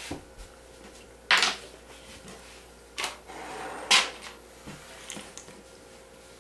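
Sharp knocks of a wooden-handled rolling pin bumping on a hard countertop as pie dough is wound onto it and lifted, two of them louder than the rest, with a brief scraping rustle between them.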